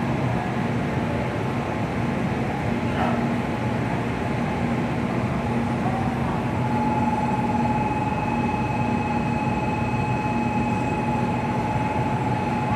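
N700A Shinkansen bullet train moving off from a station platform: a steady rumble of the passing train with a low hum, and a steady electric motor whine that comes in about six seconds in.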